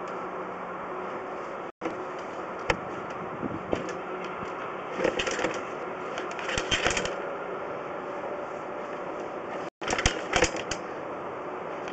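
Sewer inspection push camera being fed down the pipe: a steady hum with bursts of rattling and clatter from the push cable and reel. The sound cuts out briefly twice.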